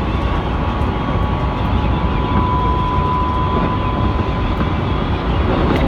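Keikyu main line train running at speed, heard from inside a passenger car: a steady rumble of wheels on rail with a steady high tone that swells in the middle and fades again.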